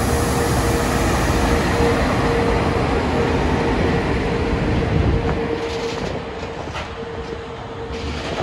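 Class 139 electric locomotive and its freight wagons rolling close past: a loud rumble of wheels on rail with a steady hum. After about six seconds it eases into quieter wagon rolling with scattered clicks and clatter.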